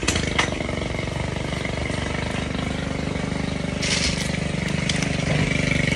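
An engine starts suddenly and settles into a steady idle, with a short rise about four seconds in.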